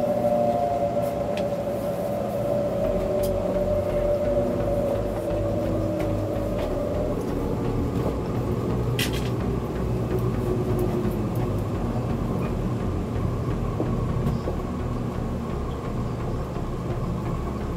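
Interior running noise of a THSR 700T high-speed train: a steady low rumble, with a whine that falls slowly in pitch over the first several seconds as the train slows on its approach to a station. A brief tick about nine seconds in.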